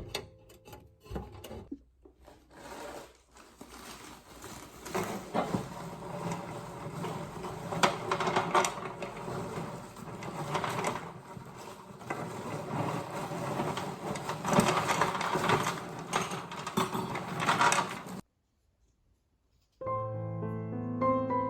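Irregular rubbing and scraping against a surface, stroke after stroke. It stops, and after a brief gap soft piano music begins near the end.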